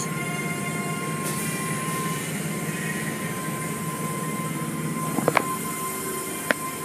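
Automatic car wash machinery and spinning cloth brushes working over the car, heard from inside the cabin: a steady rumble under a constant high tone, with a few sharp knocks about five seconds in and one more near the end.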